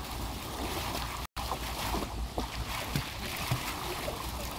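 Fountain jet splashing steadily into a shallow pool, with small splashes and droplets as a Boston terrier paddles through the water. The sound cuts out for an instant about a second in.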